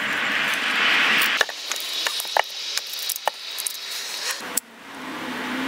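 T-handle hand auger boring into a green branch: a steady harsh scraping for about a second and a half that stops suddenly, followed by a string of sharp clicks and knocks of wood and tool being handled.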